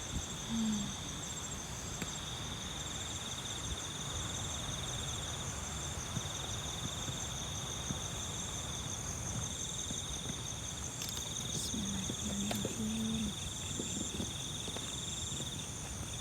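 Night insects, crickets or katydids, chirring steadily in two high, rapidly pulsing trills, over a low background rumble.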